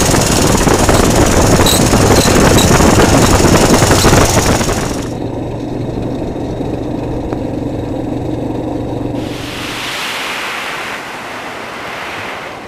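ATV engine running: loud and rough for the first five seconds, then abruptly a steadier, quieter engine hum with a clear low tone, which changes again to a softer rushing noise about ten seconds in.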